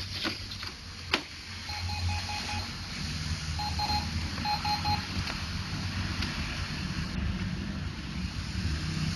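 Brother MFC-J615W inkjet printer beeping in three short runs of rapid pulses, after two sharp clicks in the first second, over the low hum of its mechanism running. This comes as the printer checks the freshly reinstalled ink cartridges.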